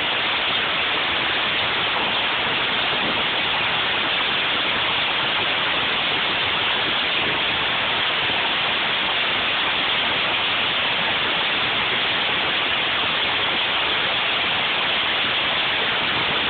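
Heavy storm downpour of rain and hail, a dense steady hiss.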